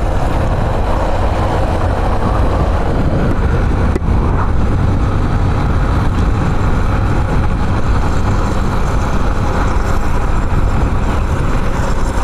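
Wind rushing over the microphone of a moving motorcycle, a steady loud rumble with the bike's running and road noise underneath, on a Yamaha Factor 150 single-cylinder motorcycle.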